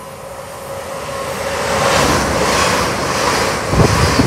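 Hitachi Class 800-series Intercity Express Train approaching and passing close along the platform. A steady tone early on gives way to a rising rush of wheel-on-rail and air noise. About four seconds in come repeated heavy low thuds as the wheelsets pass.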